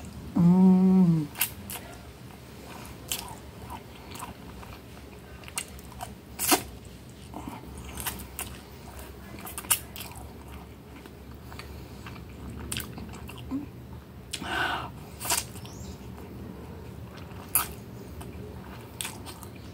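Close-miked eating sounds of a person eating spaghetti: chewing, wet mouth clicks and smacks scattered throughout. A short hummed "mm" about half a second in is the loudest sound, and a brief slurp comes around fifteen seconds in.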